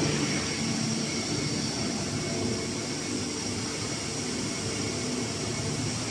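Steady hum of running factory machinery and cabinet ventilation, an even noise with a few faint held tones underneath.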